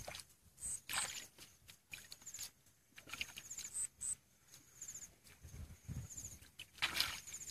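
Hands splashing and sloshing in shallow muddy ditch water while groping for small fish, in irregular bursts, the loudest splash about seven seconds in. Faint short high chirps recur in the background.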